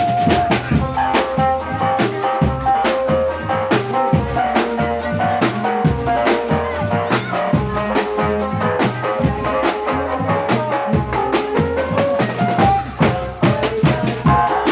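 Live band music: a drum kit keeps up a busy, steady beat with bass drum and rimshots under a held melody line.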